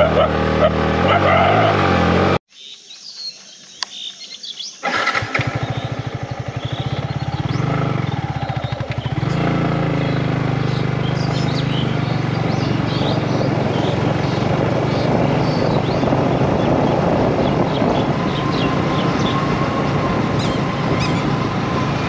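Yamaha MT-15's single-cylinder engine running at low road speed, heard from the rider's seat. The sound cuts out abruptly about two seconds in and comes back nearly three seconds later as a quick run of firing pulses, then settles into a steady hum. Faint bird chirps are heard in the later part.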